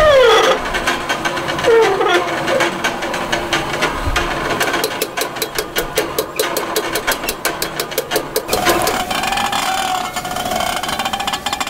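Hand-cranked intonarumori-style noise machines, wooden boxes with horns, being played. A falling whine at the start gives way to a fast, even clicking rattle in the middle, then a wavering steady drone near the end.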